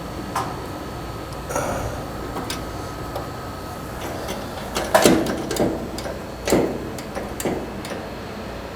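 Irregular clicks and light knocks as a dryer drive belt is worked onto the motor pulley inside a Samsung electric dryer, the loudest few coming about five to seven and a half seconds in.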